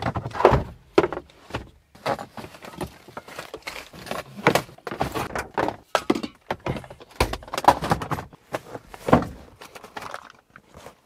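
Tools and gear being rummaged through in a ute's aluminium canopy: an irregular run of knocks, clunks and rattles as things are shifted about and lifted out.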